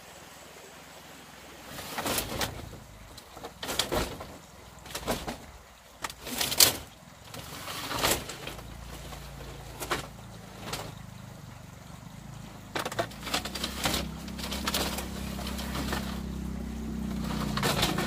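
A small engine running steadily at a low pitch, growing louder toward the end, with a series of sharp knocks or clatters about once a second.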